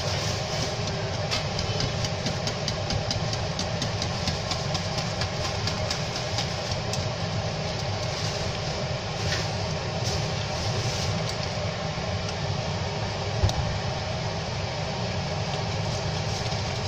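A wire dal whisk stirring thin khichuri in a stainless steel pot, clicking against the pot's sides in runs of about four taps a second, with one sharper knock near the end, over a steady hum.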